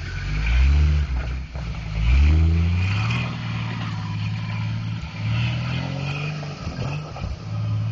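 Jeep Wrangler engine revving under load while climbing a rocky hill: it surges up in pitch twice in the first few seconds, then runs steadier with smaller bursts of throttle.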